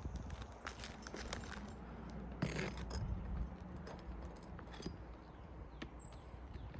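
Scattered metallic clinks and scrapes of a roof snake (shingle ripper) working under lifted asphalt shingles to pull out an old nail.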